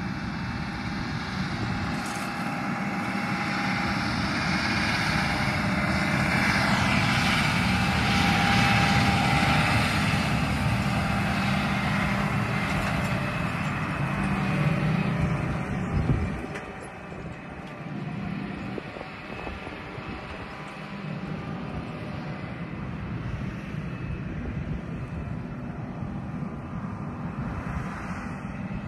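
Engine of a self-propelled boom crop sprayer driving through a field, growing louder as it passes close. The sound drops off suddenly about halfway through and then continues more quietly.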